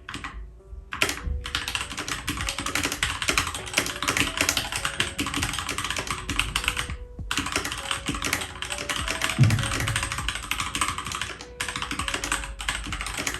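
Fast typing on a Keychron K2 mechanical keyboard: a dense run of switch clicks and keycap clacks. It is broken by brief pauses near the start, about halfway through and about three-quarters of the way through.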